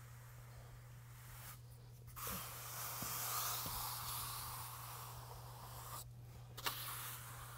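Steel finishing trowel scraping over wet urethane concrete screed in smoothing strokes: a faint rasping hiss that drops out twice for a moment, with a small click near the end. A steady low hum runs underneath.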